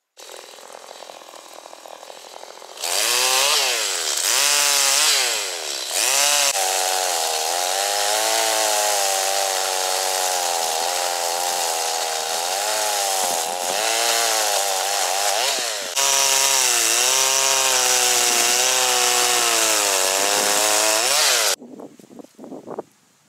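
Two-stroke chainsaw cutting through a fallen birch trunk. It revs up and down a few times, then runs at high revs under load for about fifteen seconds, its pitch sagging and recovering as the chain bites, and cuts off abruptly near the end.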